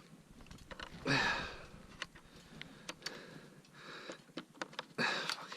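A person's heavy breaths, two loud ones about a second in and near the end, over scattered light clicks and taps of handling parts.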